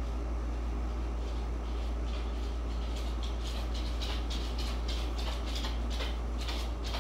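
A steady low hum with a hiss over it. From about a second and a half in come soft brushing and rustling sounds several times a second, which fit hands and flannel sleeves moving while signing.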